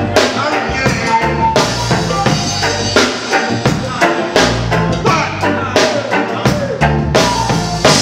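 Live reggae band playing: a drum kit with rimshots, snare and kick drum beating regularly over deep sustained bass notes and electric guitar.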